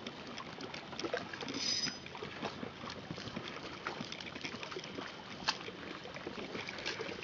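Water lapping and trickling against a small fishing boat's hull, an even wash of noise. Scattered small clicks and knocks run through it, with one sharper click about five and a half seconds in.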